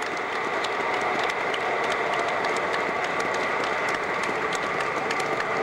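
Congregation applauding, a dense, steady patter of many hands clapping.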